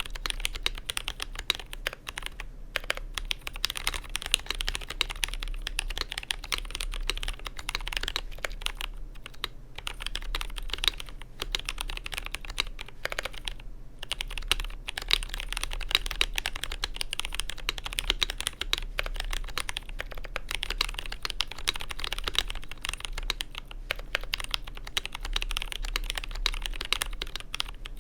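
Continuous fast typing on a GMMK Pro custom mechanical keyboard with Zealios V2 67g tactile switches in an FR4 plate, Durock V2 stabilizers and JTK Night Sakura keycaps: a dense stream of keystroke clacks broken by a few brief pauses.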